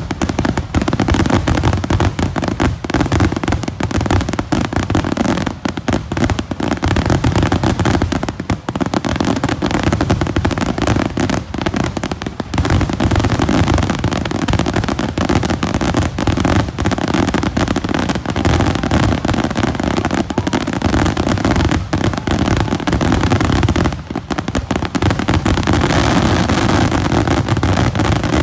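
Fireworks grand finale: a dense, rapid barrage of shell bursts overlapping almost without pause, with a few brief lulls.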